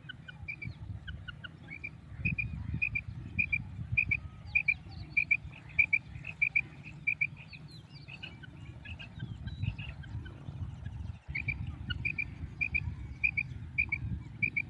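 Female quail calling: short, high notes in quick pairs, repeated about twice a second, with a steady low rumble underneath.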